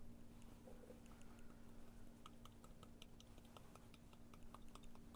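Faint, quick light ticks of a paintbrush being tapped by hand to spatter drops of paint onto marbling size, coming thicker about two seconds in, over a low steady hum.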